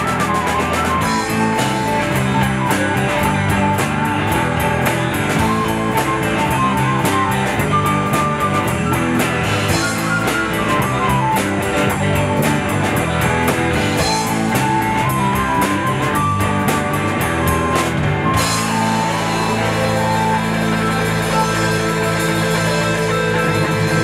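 Live rock band playing an instrumental passage with electric guitars, bass, flute and drum kit. About 18 seconds in the drums stop, leaving held guitar and bass notes.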